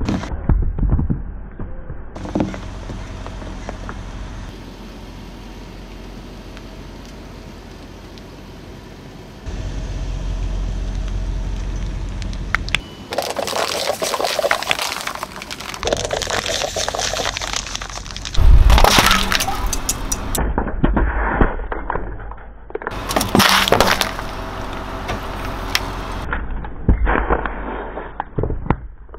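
A car tyre rolling slowly over objects and crushing them, in a run of separate clips: a chalky block crumbling, then clear plastic cups cracking and crunching, with the loudest crack about two-thirds of the way through, and near the end a tube of ice pop squashing and squirting under the tread.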